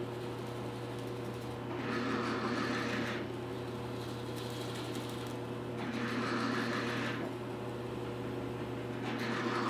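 Drill press running with a 7/8-inch Forstner bit boring a shallow hole, set by a depth stop, into a hardwood frame. A steady motor hum with a hissing cutting sound three times, about four seconds apart, each lasting a second or so.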